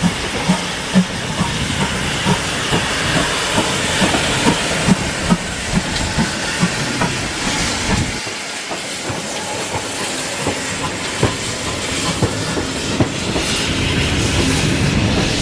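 GWR Large Prairie tank engine No. 5199 moving slowly past, steam hissing over a regular low beat from its exhaust. About eight seconds in the sound changes abruptly to passenger coaches rolling by, wheels clicking over the rail joints.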